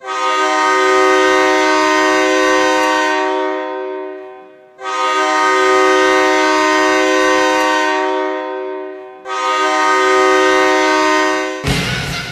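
Goal horn sounding three long blasts of a steady chord of several tones, each about four seconds and fading at its tail. About a second before the end, goal-song music cuts in abruptly.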